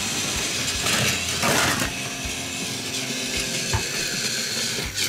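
Battery-powered Plarail toy locomotive's small gear motor whirring steadily as it pulls a wagon along plastic track, with a light ticking from the wheels and track.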